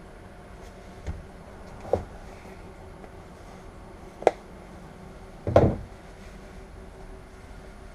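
Navistar VT365 V8 turbo-diesel of a school bus idling steadily, heard from the driver's seat, with four sharp knocks and clunks in the cab, the last and loudest about three-quarters through.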